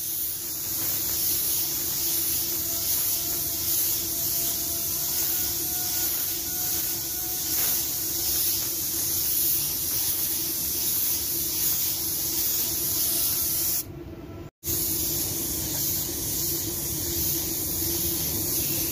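Automotive paint spray gun spraying red basecoat onto a car bumper: a steady hiss of air and atomised paint, which stops for under a second about fourteen seconds in as the trigger is released, then resumes.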